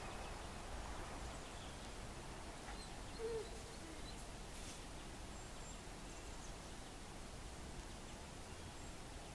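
Faint outdoor ambience: a steady low background hiss with a few brief, faint bird chirps, and one short low call about three seconds in.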